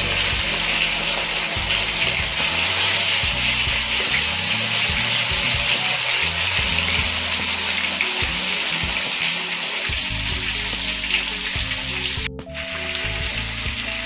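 Egg-coated chicken wings frying in hot oil in an aluminium karahi: a loud, steady sizzle that cuts out for a moment about twelve seconds in, then resumes. Low music plays underneath.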